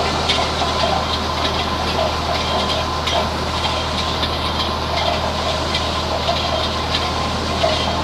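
Tractor engine running steadily while its mounted rotary broom brushes across a gravel road bed, a continuous scratchy sweeping over the engine's low hum.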